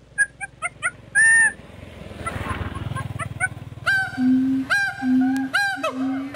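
Animal calls: short clucking notes about four a second, then a loud held honk-like call just after one second in, and from about four seconds in a series of repeated calls falling at their ends, with a lower steady hoot between them.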